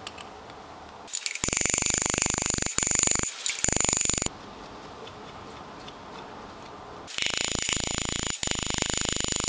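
Hammer rapidly tapping a drift against a metal blanking plug, driving it into a balance-shaft bore of a Saab B204 engine block, with a high metallic ring. It comes in two bursts of about three seconds each, starting about a second in and again about seven seconds in.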